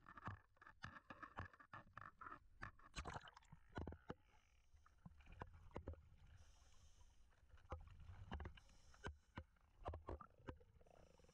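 Faint, muffled water sounds through a waterproof camera: small waves slapping at the surface, then a scatter of quiet knocks and clicks over a low rumble once underwater.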